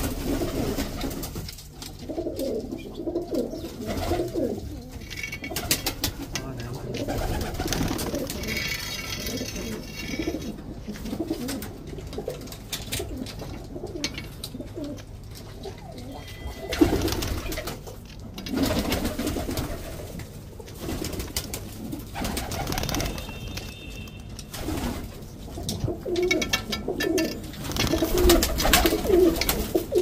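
Several domestic pigeons cooing over and over in a small loft, a low throaty warble, with a few brief higher-pitched chirps now and then.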